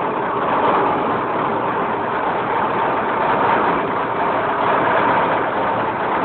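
Deutz 358 marine diesel engine running steadily, heard up close in the ship's engine room: a loud, even mechanical drone with a faint steady whine running through it.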